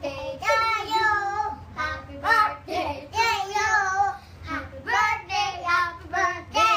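A child singing a song in a high voice.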